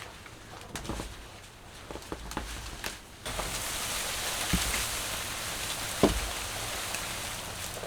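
A few light knocks, then a steady hiss like rain falling that starts abruptly about three seconds in, with a thump about six seconds in.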